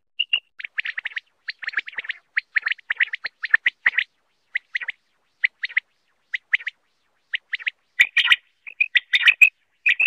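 Common quail calling: runs of short, high, clipped notes in quick clusters with short gaps between, thinning out midway and growing denser and busier near the end.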